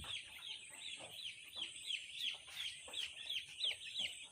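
A flock of three-day-old broiler chicks peeping continuously: many short, high, falling cheeps overlapping, several a second.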